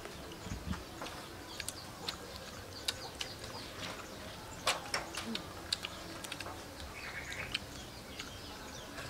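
Crunching and chewing of crispy battered deep-fried frog: scattered sharp crackles and clicks, with bird chirps in the background.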